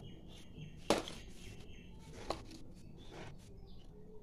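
Quiet kitchen handling: a few light clicks and knocks of utensils or containers, the sharpest about a second in, with faint short high tones in the background.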